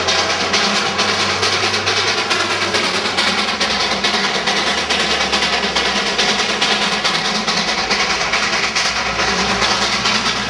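Darjeeling Himalayan Railway B Class 0-4-0 saddle-tank steam locomotive working a train past close by, its exhaust beating in a fast, even rhythm.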